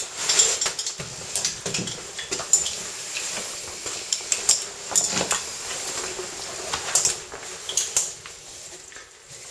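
Caving gear, carabiners and rope hardware, clinking and clattering irregularly as a caver clips onto a rigged rope and starts down a shaft. The clinks thin out and fade near the end.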